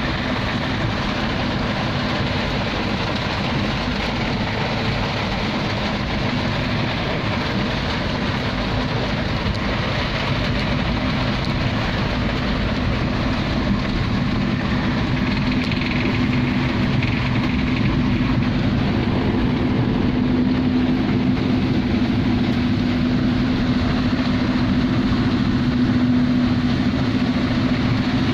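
Heavy rain on a vehicle with its engine running, heard from inside the cabin while driving through floodwater: a steady hiss of rain over a steady low engine hum, growing a little louder from about halfway through.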